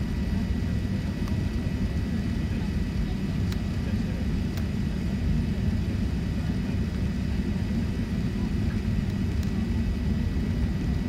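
Steady low rumble of a Boeing 777 airliner in flight, heard inside the passenger cabin during the descent to land: engine and airflow noise, with a faint steady high whine above it.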